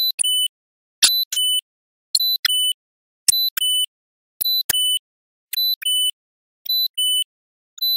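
Security alarm keypad sounding its timer countdown: a short high beep followed by a slightly lower, longer beep with a click, the pair repeating about once a second.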